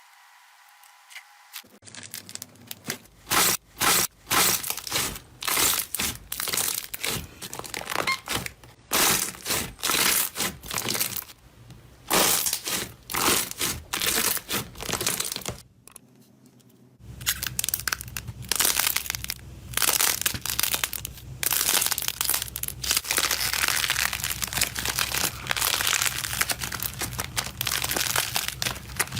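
Slime being squeezed and poked by hand, making dense crackling and crinkling pops. About halfway through a different take begins, with a steady low hum under the crackles.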